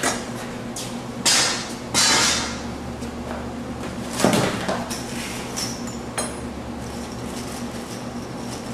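Workshop knocks and scrapes from canvas stretching on a wooden frame. There is a sharp knock at the start, two louder scraping rasps a little over a second and two seconds in, and another knock with a rattle about four seconds in, all over a steady low hum.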